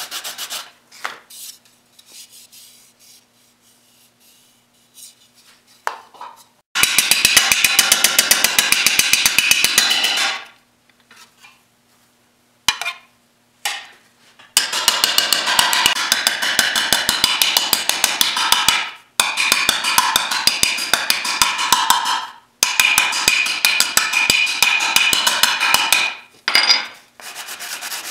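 Small-faced hammer striking a thin aluminum fender panel laid over a sandbag, in four long runs of rapid, even blows sped up by fast-forward. Brief scraping of a hand pad across the metal comes at the start and again near the end.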